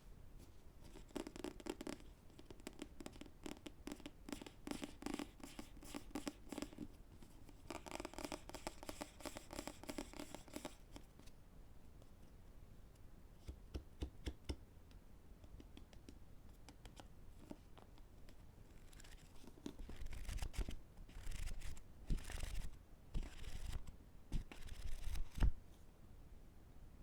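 Fingers tapping and scratching on books: fast, dense runs of taps and scratches for roughly the first ten seconds, then scattered taps, then clusters of sharper taps with dull low knocks near the end.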